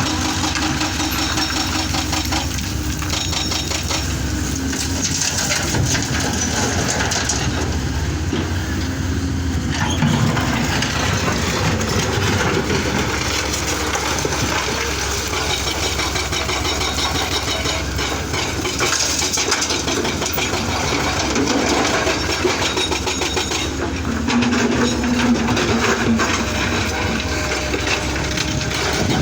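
Excavator engine running steadily, with irregular clanks and scraping on top.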